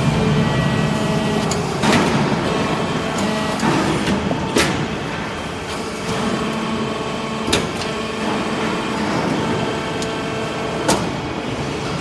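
Hydraulic metal-shavings briquetting press running with a steady machine noise, with four short sharp metallic knocks about three seconds apart as it cycles and pushes out compacted briquettes.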